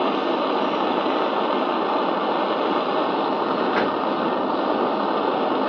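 Portable butane torch burning with a steady hiss, its flame heating a spoonful of honey on a steel spoon.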